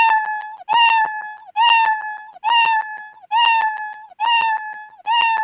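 Scratch's cartoon cat meow sound effect looping, one short meow about every 0.9 s, about six times, each with a click at its start. It gets a little quieter with each repeat as the program lowers the volume on every loop.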